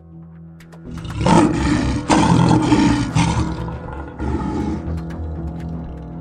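Lion roaring, three calls: two long ones about a second and two seconds in, and a short one around four seconds in, over background music.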